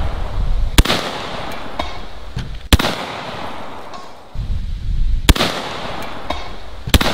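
Zeus .72-calibre (12-gauge) air-powered shotgun firing four single shots, each a sharp crack with a short fading tail, about two seconds apart.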